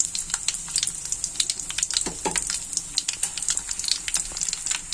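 Hot oil sizzling in a kadai, with a tadka of cumin, mustard seeds, garlic, dried red chillies, curry leaves and freshly added green chillies frying in it. Many quick pops and spits over a steady hiss.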